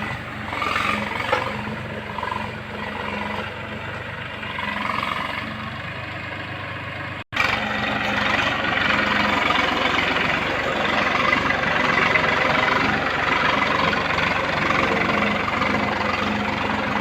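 Massey Ferguson 1035's three-cylinder diesel engine running steadily while the tractor pulls a disc plough through hard ground. The sound cuts out for an instant about seven seconds in and comes back a little louder.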